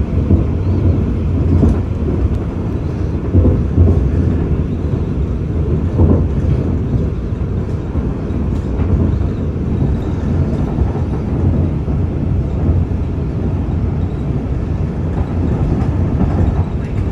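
Airport people-mover train running at speed, heard from inside the car: a steady low rumble with a few brief knocks.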